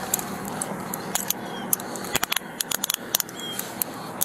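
Small metal items jingling and clinking in scattered light clicks, over a steady outdoor hiss.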